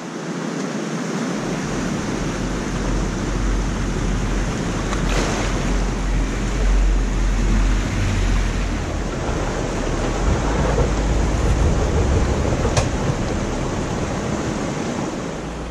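Fast snowmelt creek rushing over rocks, with the low rumble of a Jeep Wrangler JK Rubicon's 3.6-litre V6 coming in after about a second as it fords the deep water.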